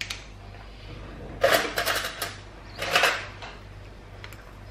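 A metal teaspoon scraping and clinking inside a small tin, in two quick bursts of clicks, about a second and a half in and again about three seconds in.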